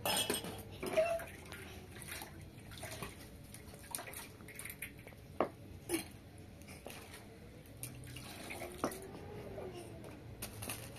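Water sloshing and dripping in a plastic basin as dishes and tea glasses are washed by hand, with scattered sharp clinks and taps.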